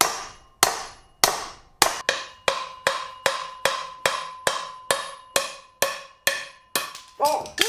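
Hand sledge hammer striking a driveshaft's steel end yoke in a steady run of sharp metal blows, about two to three a second, each with a short ring. The blows are driving a U-joint bearing cap out of the yoke to remove the U-joint.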